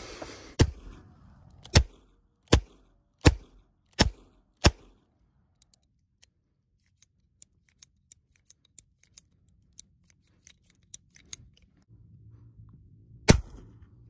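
Six revolver shots fired in quick succession, then a string of small metallic clicks as the revolver's cylinder is turned and the gun is worked by hand, and one more shot near the end.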